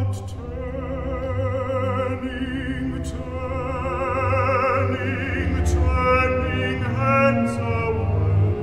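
A male operatic baritone singing with strong vibrato over a symphony orchestra's sustained low accompaniment, growing louder toward the end.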